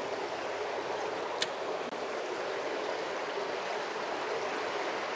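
Stream water flowing with a steady rush, and a single sharp click about one and a half seconds in.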